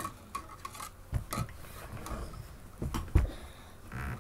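Hard plastic parts of a toy RC helicopter clicking and knocking against a stone countertop as the helicopter and its loose shell are handled. Irregular clicks and clunks, the loudest about three seconds in.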